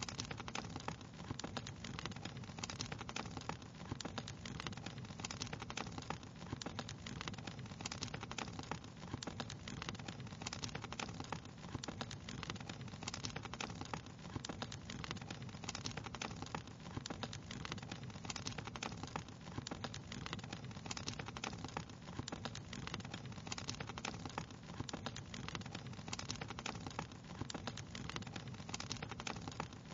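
Wood fire crackling: quick, irregular snaps and pops over a steady low hiss.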